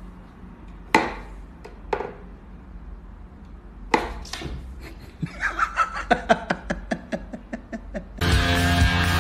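Wooden pegs of a cat's whack-a-mole box toy knocking as they are poked up and swatted: a few single sharp knocks, then a quick run of clicks at about five a second. Loud music comes in near the end.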